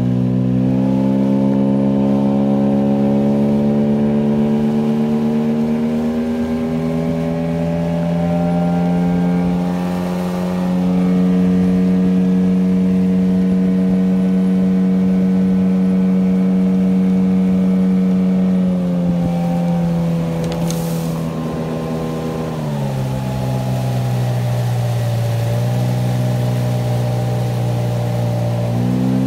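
Two-stroke outboard motor of a small boat running under way, a new motor being run in. Its pitch holds steady for several seconds at a time and steps up and down a few times as the throttle is changed.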